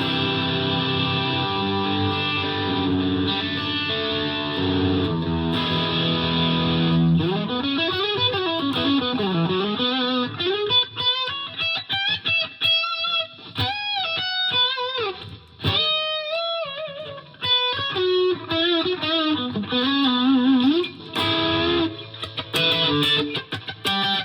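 Gibson Les Paul Classic electric guitar with a Seymour Duncan SH-1 humbucker, played through a Fender Mustang LT50 amp on an overdriven tone. It plays held distorted chords, then single-note lead lines with bends and vibrato, and chords again near the end.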